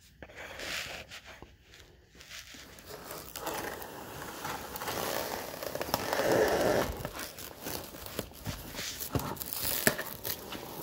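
Plastic shrink wrap being pulled off its roll and wound round, crinkling and crackling with small clicks, loudest about six seconds in.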